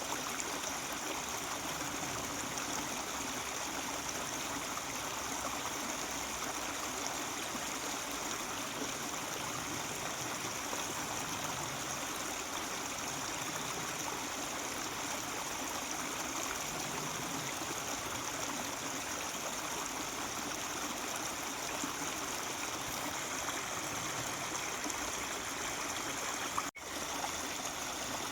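Mountain stream flowing steadily over rocks, a constant even rush of water, with a momentary break in the sound near the end.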